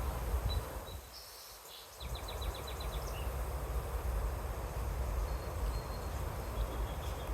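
Low rumble of wind on the microphone, easing off for about a second near the start. About two seconds in, a small bird gives a quick run of about seven short, high chirps, and a few faint thin peeps come later.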